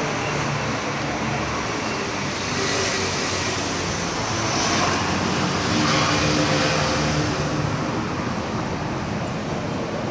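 Toyota Vios inline-four engine running steadily at idle, heard at the tailpipe through an aftermarket Mugen-style stainless rear muffler.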